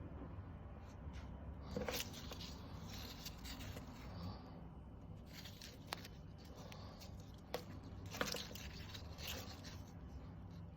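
Handling noises: light scraping and rustling with a few sharp clicks, over a faint steady low hum; the sander is not running.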